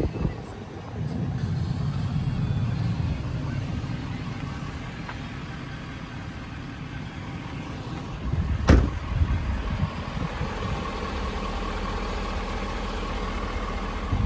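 Steady low rumble of a Ford 6.7 Power Stroke diesel idling. There is a single sharp thump about nine seconds in.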